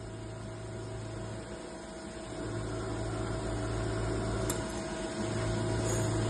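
CO2 (MIG) welding machine running during a welding demonstration: a steady low electrical hum over a noisy hiss. The hum stops briefly twice, as the weld starts and stops.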